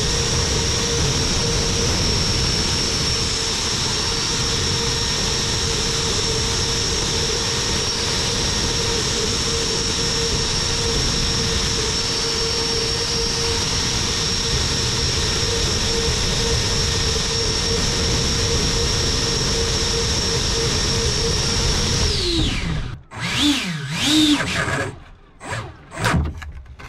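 Electric ducted fan of an RC boat running flat out with a steady high whine, then winding down in pitch and cutting out a little over twenty seconds in. A few short throttle bursts follow, each rising and falling in pitch.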